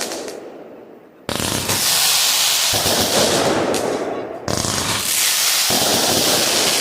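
Fireworks launched at close range: two loud sudden bangs, about a second and four and a half seconds in. Each is followed by a few seconds of dense noise before the next, and the tail of an earlier bang fades out at the start.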